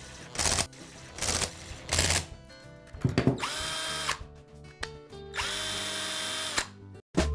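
A few short bursts of noise while the rear cap is screwed on, then a DeWALT 18V cordless hammer drill run twice on its trigger for about a second each. Each time the motor spins up with a rising whine, holds steady and stops, testing the newly replaced variable-speed switch.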